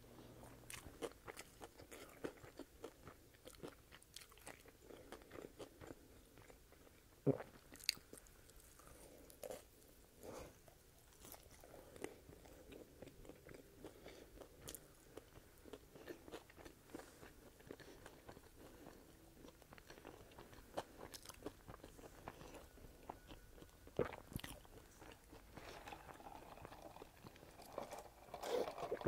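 Close-miked ASMR eating: chewing and biting into a toasted sub sandwich, with soft crunches and wet mouth sounds scattered throughout and one sharper crunch about seven seconds in. Near the end comes a sip of soda through a straw.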